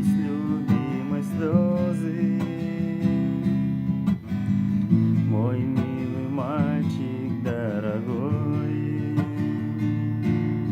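Acoustic guitar strumming a steady accompaniment, with picked melody notes that waver in pitch, in a wordless instrumental passage after the last sung verse.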